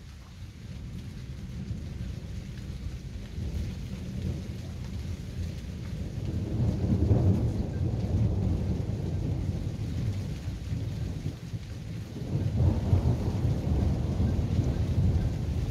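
Rolling thunder following a lightning flash. A deep rumble builds over the first few seconds and is loudest about seven seconds in. It eases off, then rolls in loud again about twelve and a half seconds in.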